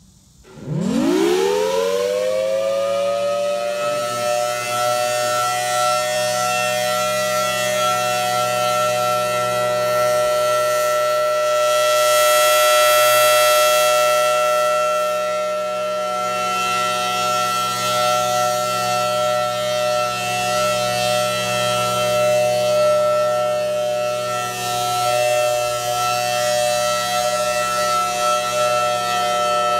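Federal Signal Thunderbolt 1000T outdoor warning siren starting up. It winds up quickly in a rising sweep over about two seconds, then holds a steady, loud two-tone chord.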